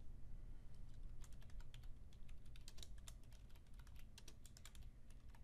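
Faint typing on a computer keyboard: a quick run of key clicks beginning about a second in, thinning out toward the end.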